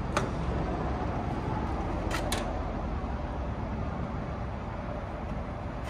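Steady low background rumble with a sharp click just after the start and two quick clicks about two seconds in, as the diesel pump's lever is worked by hand; no fuel is flowing.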